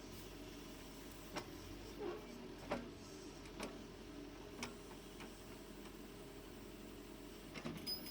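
John Deere 310 backhoe loader's diesel engine running faint and steady, with a handful of sharp knocks or clanks scattered through it.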